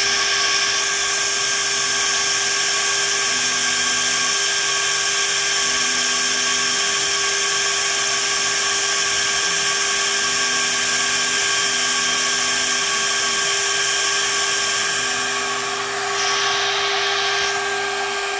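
DMC2 desktop CNC mill's spindle running with a steady high whine while a pointed engraving tool engraves lettering into 6061-T6 aluminum, dry, without coolant. A lower tone comes and goes in short stretches of about a second, and the whine changes near the end as the tool lifts clear of the part.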